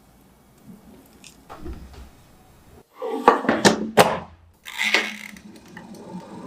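Quiet at first, then about three seconds in a run of sharp knocks and thuds with a brief scraping clatter: cookware being handled.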